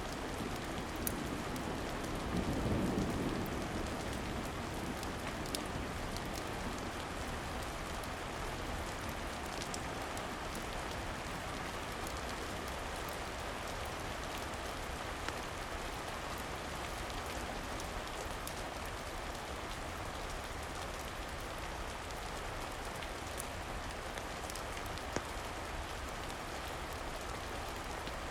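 Steady rain falling, with a brief low rumble of distant thunder about two to three seconds in. A few faint crackles from a wood fire come through now and then.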